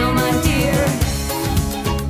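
Background pop song with a singing voice over a steady beat.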